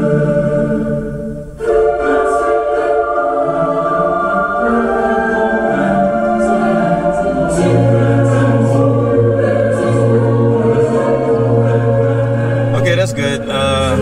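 Music with singing voices playing over a truck's stereo in the cab, through a Kicker Hideaway HS10 10-inch subwoofer and JL Audio RD400/4 amplifier, with long held bass notes from about halfway. The music dips briefly about a second and a half in and breaks off just before the end.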